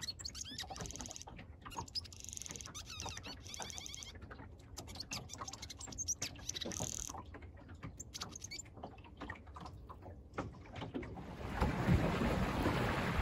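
Quiet stretch of short, high chirping squeaks and light clicks over a low rumble. About eleven seconds in, a loud rush of wind buffeting the microphone and water streaming past the hull of a small sailboat under way takes over.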